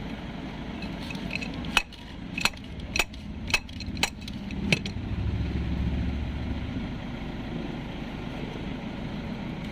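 Starter motor of a 2010 Ford Everest struck with an adjustable wrench: six sharp metallic knocks about half a second apart, tapping meant to free sticking carbon brushes in a no-crank, no-start fault. A low rumble swells and fades after the knocks.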